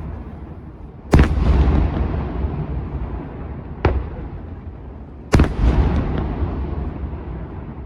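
Firework shells exploding in a daytime fireworks display: a big boom about a second in and another about five seconds in, with a sharper, smaller crack between them near four seconds. Each report is followed by a long rumbling echo.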